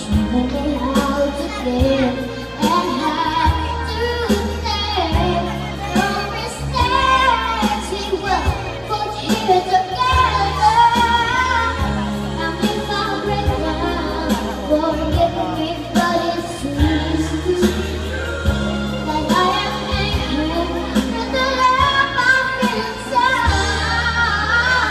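A young girl singing a pop song into a handheld microphone over an accompanying backing track with a steady, repeating bass line, played through a PA.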